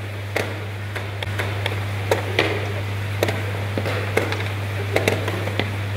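Irregular sharp taps and clacks, about two a second, of chess pieces being set down on a board and chess-clock buttons being pressed in a fast blitz game, over a steady low hum.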